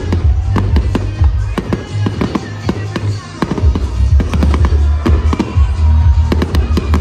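Fireworks display: a rapid, irregular run of pops, crackles and bangs from bursting shells and ground-fired comets, over music with a heavy low bass.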